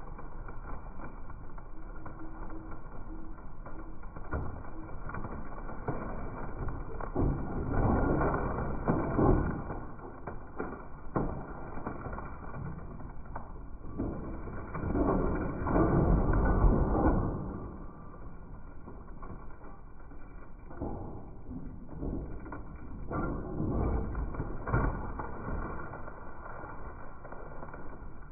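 Kobelco 50 compact excavator working, its engine and hydraulics rising and falling in several louder swells, with a few sharp cracks.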